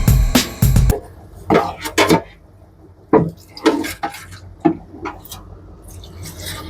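Kitchen utensils and dishes clinking and knocking in a string of separate sharp strikes, after a short tail of music near the start.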